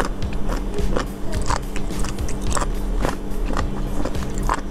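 Close-miked eating of raw sliced sea cucumber: biting and chewing with irregular sharp clicks and wet mouth smacks, several a second.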